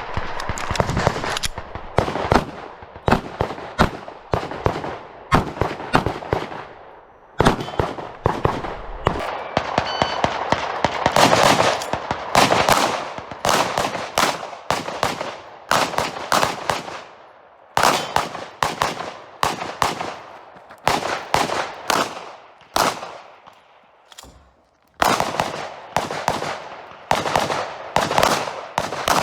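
Rapid 9mm pistol fire from a Glock: strings of quick shots with short pauses between them while the shooter moves and reloads through a course of fire. There is a longer lull about three-quarters of the way through before the shooting resumes.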